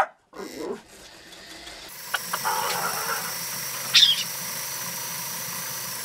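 Electric home sewing machine stitching through layered fabric and batting: it speeds up, runs steadily for about four seconds and stops near the end. A brief high squeak comes about four seconds in.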